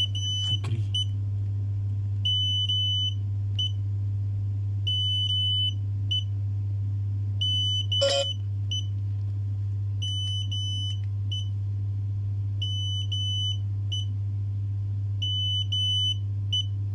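Xiaomi M365 electric scooter beeping its error 21 code, the battery communication error: two longer high beeps then one short one, the group repeating about every two and a half seconds. A steady low hum runs underneath, and a single knock comes about eight seconds in.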